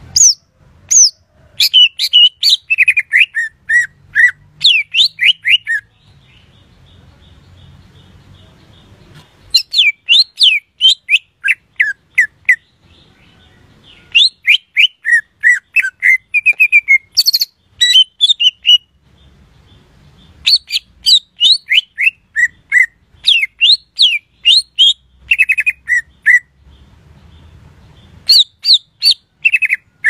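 Cucak ijo (green leafbird) singing: phrases of rapid, clear whistled notes, most of them sweeping down in pitch, each run lasting a few seconds with short pauses between.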